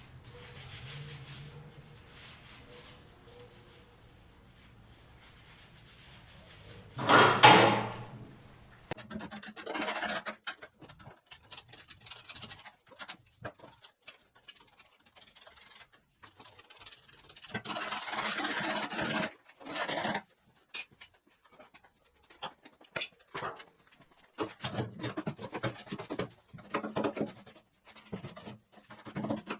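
Hand work with tools and parts: irregular scraping, rubbing and knocking, with one loud, brief noisy burst about seven seconds in and a longer scrape of a second or two later on.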